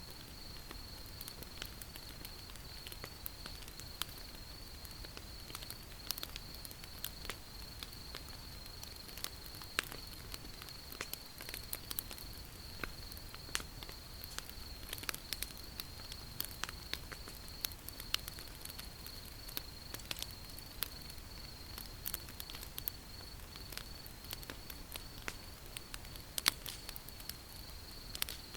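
Wood fire crackling with irregular sharp pops and snaps over a low steady hiss of burning. A steady high-pitched insect trill runs underneath.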